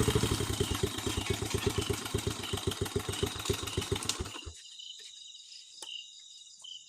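An engine idling, then switched off: its firing slows and cuts out about four and a half seconds in. Crickets keep up a steady high trill underneath and carry on alone once the engine stops.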